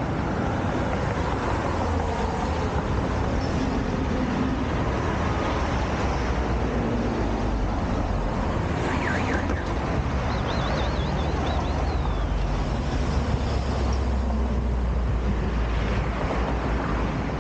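Steady street traffic noise with a heavy low rumble. About halfway through, a brief warbling high tone sounds, then a second one just after.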